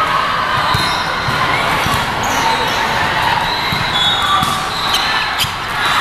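Din of a large indoor volleyball tournament hall: background chatter with volleyballs being hit and bouncing on the courts, and a sharp hit about five seconds in.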